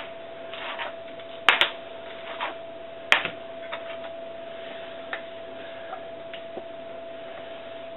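A few sharp knocks and clicks of dessert moulds and containers being handled and set down on a marble worktop, loudest about one and a half and three seconds in, then fewer and fainter. A steady thin whine runs underneath.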